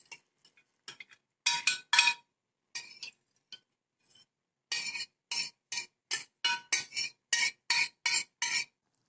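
A spoon scraping and clinking against a glass baking dish as thick marinade is scraped out of it. There are a few scattered strokes, then, from about halfway, a steady run of about three strokes a second.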